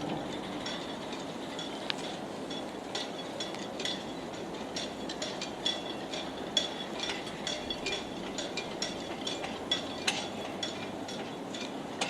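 Sailboat rigging in a harbour: halyards and fittings clinking irregularly against metal masts, several light ringing taps a second over a steady low rush of water and wind.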